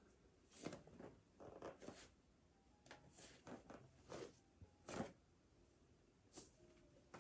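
Faint rustles and soft scuffs of clothing and a mat, coming in short clusters every second or so, from a person doing full prostration bows.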